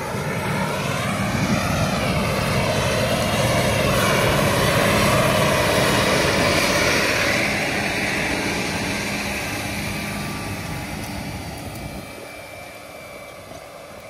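Tractor pulling a Simba Freeflow seed drill drives past, the engine and drill noise growing louder to a peak about five seconds in and then fading away.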